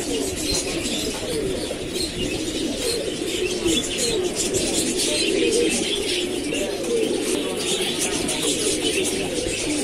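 A chorus of many caged pigeons cooing over one another without a break, with higher chirps mixed in.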